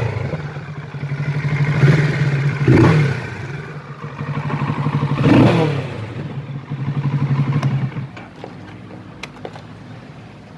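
Kawasaki Z650 motorcycle engine running, revved up in short blips that rise and fall back, two or three times. About eight seconds in it drops to a much quieter low running sound with a few faint clicks.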